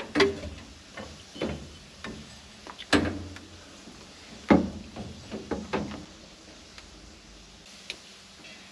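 Irregular knocks and clunks from parts and wiring being handled in an old truck's engine bay. The loudest come about three and four and a half seconds in, then a quick cluster follows and it goes quieter, with one small tick near the end.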